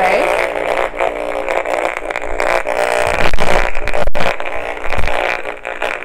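Gigahertz Solutions HF59B radio-frequency meter's speaker buzzing loudly and steadily as it picks up the radiation from a running microwave oven, with a single sharp click about four seconds in. The loudness of the buzz is the sign of very high readings, which the owner says max out the meter near the oven.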